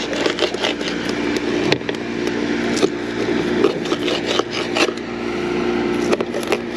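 Knife sawing through a gizzard shad on a plastic cutting board to cut it into bait chunks: repeated scraping strokes and sharp knocks as the blade cuts through the fish and hits the board, over a steady low hum.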